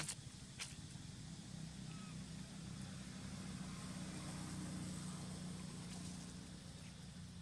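Steady low hum of a distant engine, a little louder in the middle, with a brief rustle of dry leaves under a macaque's feet about half a second in.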